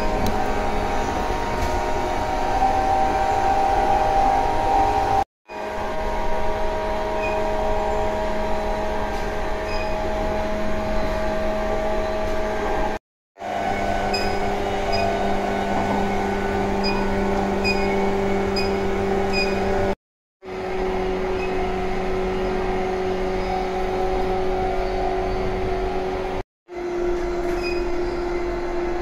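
JR 185 series electric multiple unit running at speed, heard from inside the carriage: a steady rumble of wheels on rail under a hum at a held pitch, with faint ticks now and then. The sound cuts out abruptly for a split second four times, and the hum comes back a little lower after the later breaks.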